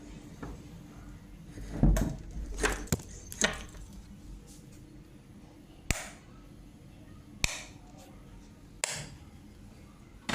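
A series of short, sharp knocks and clicks, about seven of them, irregularly spaced, the loudest a cluster near the start.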